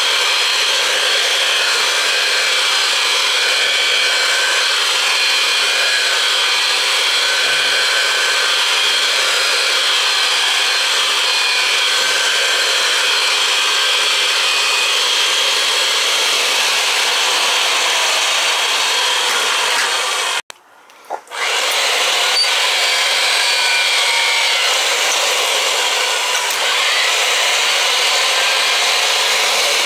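Electric pipe threading machine running steadily as it works a length of pipe. It stops for about a second some twenty seconds in when the foot pedal is released, then starts again.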